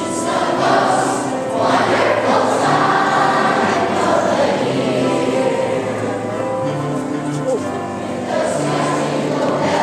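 A choir singing with instrumental accompaniment, the music of a waltz being danced to.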